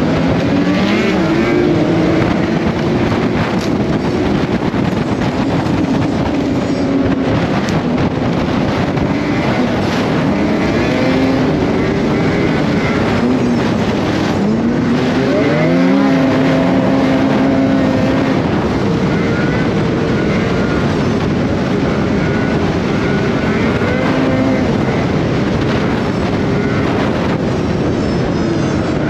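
Snowmobile engine running on a trail ride, its pitch rising and falling as the throttle opens and closes, with a sharp rev-up about halfway through. A steady noisy rush runs underneath.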